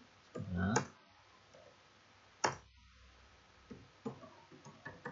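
Computer keyboard keys clicking as commands are typed: one sharp keypress about two and a half seconds in, then a quick scatter of lighter keystrokes near the end. A brief vocal sound comes just under a second in.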